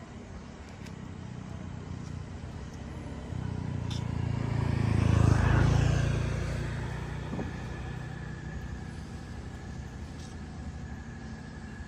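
A road vehicle passing close by: its engine and tyre noise build over a few seconds, peak about five and a half seconds in, then fade away.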